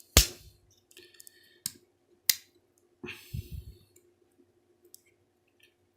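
Handling of two Swiss Army pocketknives with their tools opened out: a few sharp metallic clicks, the first the loudest, and a short scraping rustle with a low knock about three seconds in.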